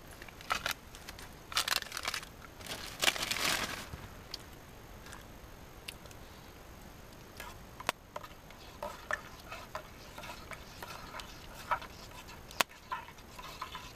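Crinkling and rustling of a plastic food bag as it is handled and eaten from, strongest in two stretches early on, with small utensil scrapes and a few sharp clicks later.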